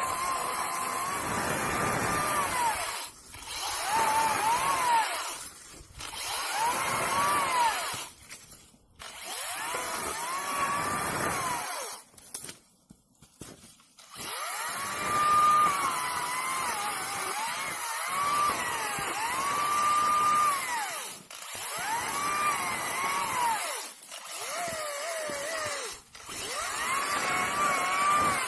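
Makita DUC204Z 18V cordless chainsaw's electric motor whining in repeated runs as it cuts wood, its pitch sagging and recovering under load. It stops briefly about seven times between runs, with a longer pause near the middle.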